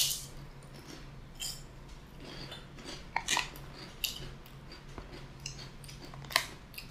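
Crispy fried fish skin being bitten and chewed: a sharp crunch at the start, then scattered, irregular crunches.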